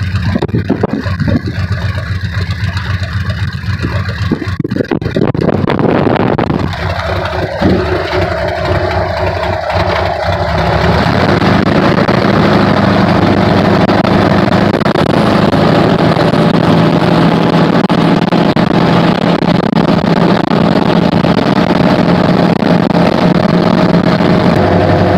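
Cessna Skymaster's exposed, air-cooled front piston engine running with the propeller turning while taxiing. It is uneven and mixed with wind noise at first, then from about eleven seconds in it is louder and holds a steady, even pitch.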